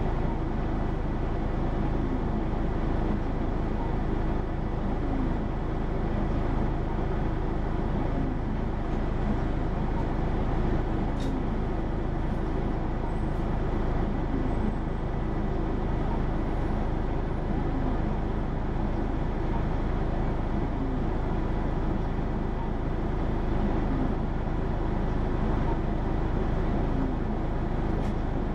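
Hino PA-KR234J1 city bus's diesel engine and running gear heard from inside the passenger cabin, running at a steady, unchanging level.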